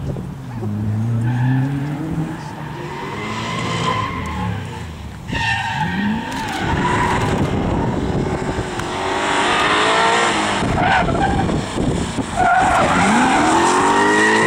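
Firenza Can Am rally car's 302 cubic-inch Chevrolet small-block V8 revving hard through the gears, its pitch rising again and again with each shift. It grows louder as the car comes in close near the end.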